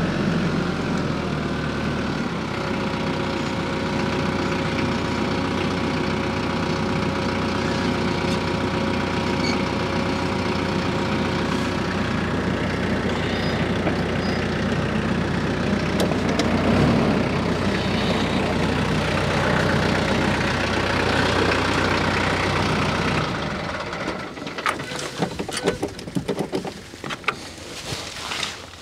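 TYM T47 compact tractor's diesel engine running steadily, with a steady whine over it, then shut off about 23 seconds in. A few light clicks and scuffs follow.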